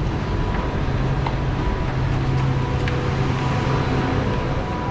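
Bangkok metro train standing at a station platform with its doors open, its machinery humming, with a low steady drone from about a second in until near the end.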